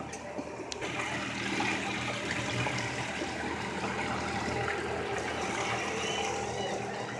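Twin Suzuki 150 outboard motors running steadily, with water churning and splashing in the wake behind them; the sound steps up a little about a second in.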